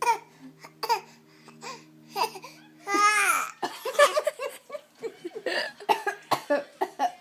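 Short fake coughs traded between adults and a four-month-old baby copying them, with a high falling squeal from the baby about three seconds in, followed by a run of quick laughing bursts.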